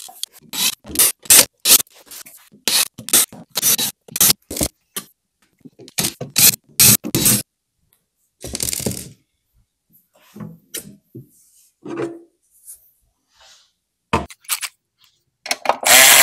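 Screws being taken out of a server rack battery's steel case with a cordless drill: a quick run of short metallic clicks and rattles, then a few scattered scrapes and knocks. Near the end a cordless ratchet runs for about a second and a half.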